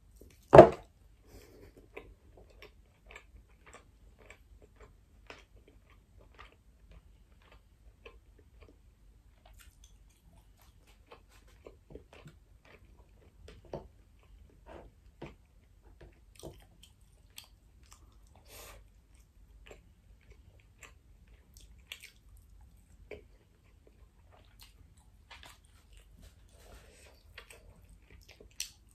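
Close-miked chewing of pan-seared salmon and rice: soft wet mouth sounds and small clicks, on and off. A single sharp, loud thump comes about half a second in.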